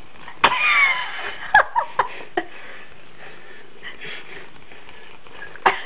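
Domestic cat giving a few short, high calls that fall in pitch within the first two and a half seconds, the first starting with a sharp click; after that only a faint steady hiss.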